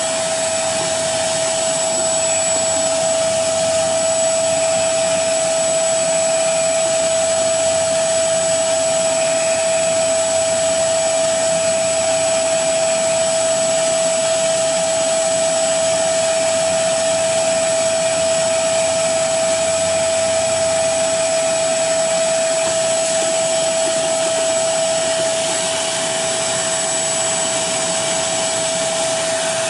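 Carpet shampooer's suction motor running steadily, a constant whine over the rush of air through its hose and hand tool.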